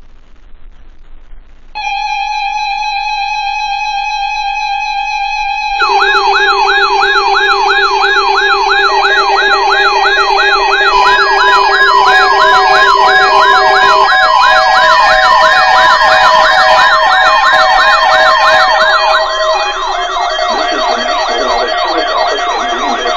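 Electronic sirens. After a moment of faint static, a steady tone sounds about two seconds in. From about six seconds, yelping sirens sweep up and down two to three times a second, several of them layered over one another.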